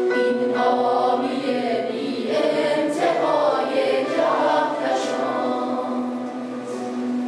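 Mixed choir of men's and women's voices singing in parts: the voices move through a phrase with clear sung consonants, then settle onto a long held chord near the end.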